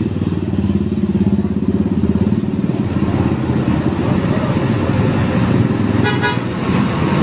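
Motor vehicle engine running steadily with a fast low throb, and a short single horn toot about six seconds in.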